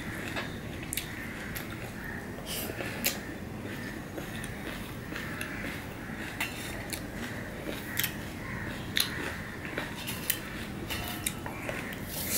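Hand mixing and kneading pomelo pulp with green chilli and salt in a stainless steel plate, with scattered sharp clicks and taps of fingers against the metal plate.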